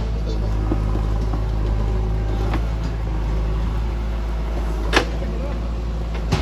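JCB backhoe loader's diesel engine running steadily, with a sharp knock about five seconds in and a fainter one halfway through as the machine works rock.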